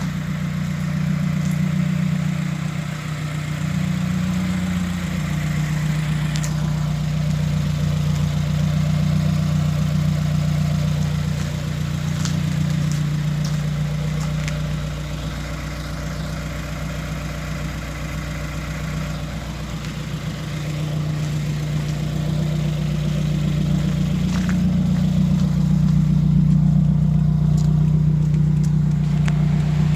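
2017 Subaru WRX's turbocharged 2.0-litre flat-four engine idling steadily.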